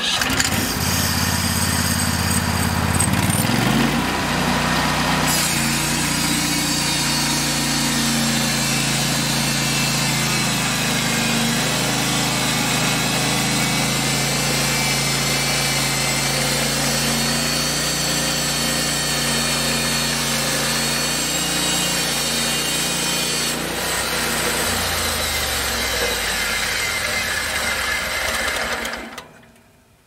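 Gas engine of a Hud-Son HFE-36 portable band sawmill running and driving the band blade through a log. It speeds up a few seconds in, holds steady through the cut, then slows from about three-quarters of the way through and dies away near the end.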